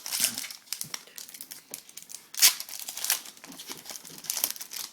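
Foil wrapper of a hockey trading card pack crinkling and tearing as it is opened, in uneven bursts with the loudest rip about two and a half seconds in.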